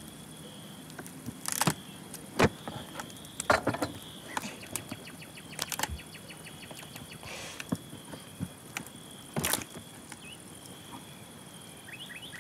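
Crickets chirping in a steady high trill, with scattered sharp clicks and knocks of objects being handled on a table.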